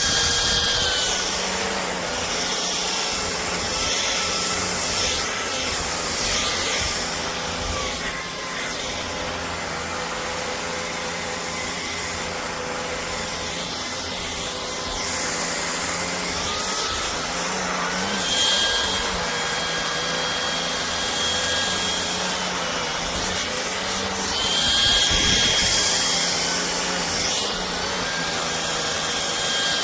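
Shark EVOPOWER SYSTEM iQ+ cordless stick vacuum cleaner running, with a steady rush of air under a high-pitched motor whine. The whine's pitch steps down and back up several times as the motor's speed changes.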